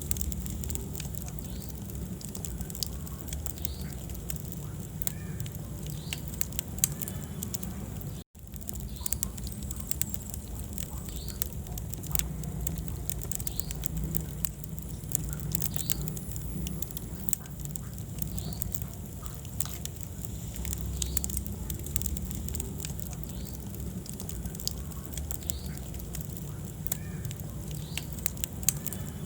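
Wood fire burning in a fireplace: a steady low rumble of flames with frequent small crackles and pops from the burning logs. The sound drops out for a split second about eight seconds in.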